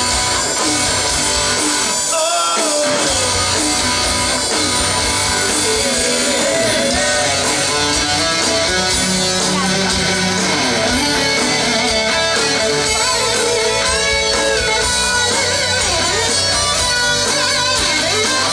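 Hard rock band playing live, led by an electric guitar solo with gliding, bent notes over the drums and the rest of the band.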